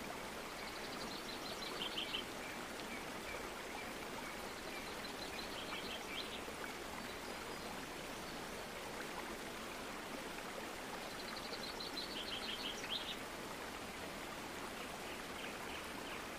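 A steady hiss like running water, with a small bird chirping in short rapid trills three times.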